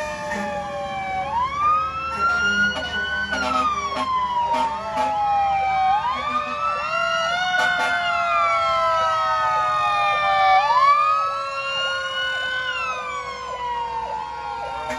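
Several fire truck sirens wailing at once, their overlapping tones each climbing over about two seconds and then falling slowly, repeating about every five seconds.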